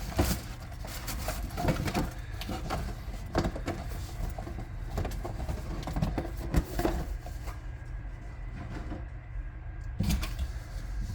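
Packaging and model boxes being handled: scattered light knocks, taps and rustles at an irregular pace, quieter for a couple of seconds near the end.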